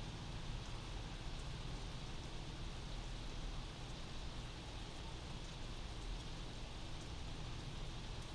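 Steady rain heard from inside a house, an even hiss with faint drop ticks over a low background rumble.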